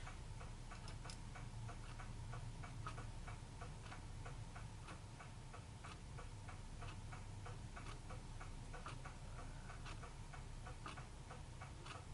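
Steady rapid ticking, about three to four ticks a second, over a low steady hum.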